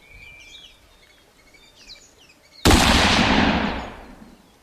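Birds chirping faintly, then a single loud gunshot a little over halfway in, its report trailing off over about a second and a half.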